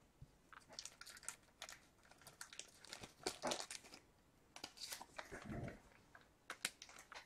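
Faint, scattered crinkles and clicks of trading cards and their plastic and paper packaging being handled.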